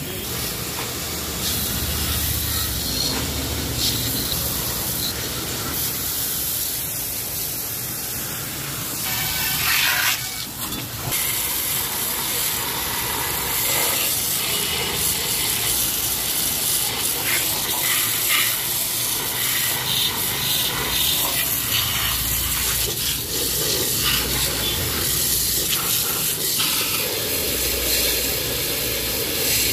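Water jet from a pressure hose hissing and splashing onto a stripped four-cylinder engine block and crankshaft as they are washed down. The spray grows louder about ten seconds in.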